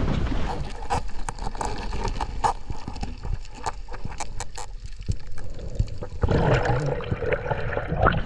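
Muffled underwater sound with a low rumble and many scattered sharp clicks and crackles, then, about six seconds in, water sloshing and splashing at the surface against the microphone.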